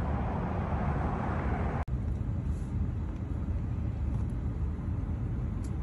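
Low, steady rumble of a car heard from inside the cabin. About two seconds in it cuts off abruptly and resumes as a duller rumble with less hiss on top.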